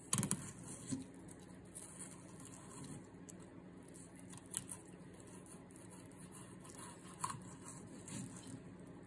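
Sharp fillet knife slicing a white bass fillet away from the rib cage on a plastic cutting board: faint cutting and scraping with a few light clicks, the sharpest just after the start.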